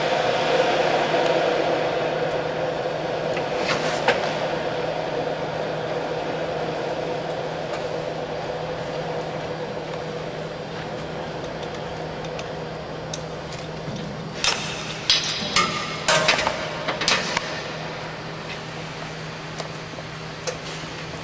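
Electric aircraft tow tractor's motor running with a steady hum that fades over a few seconds. About four seconds in there is a single sharp click, and later comes a cluster of sharp metallic clinks and knocks.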